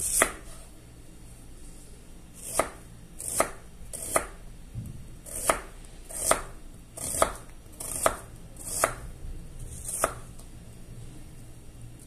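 A knife slicing through an onion and knocking down onto a bamboo cutting board: about ten slow, separate cuts, each a sharp knock.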